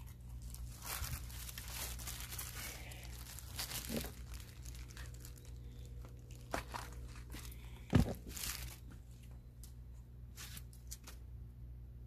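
Crinkly, scratchy rustling of hands handling raw pork chunks and a stainless steel meat-hook hanger, with a sharp knock about eight seconds in. The rustling dies down near the end.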